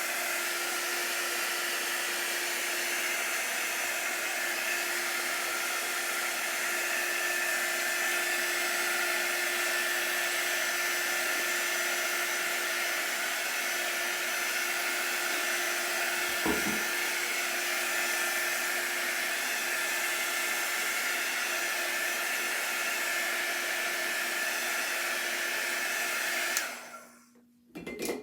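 Handheld electric blow dryer running steadily with a constant hum, drying chalk paste on a craft project, then switched off about a second and a half before the end. A single light knock sounds partway through.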